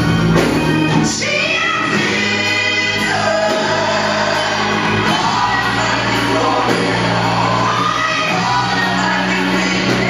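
Live gospel music: a lead voice sings long notes that slide in pitch, with a choir, over steady bass backing.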